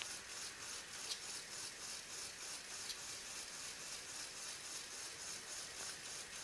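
Faint steady hiss with a few light clicks of plastic Lego Technic parts as the pneumatic crane's valve levers are worked.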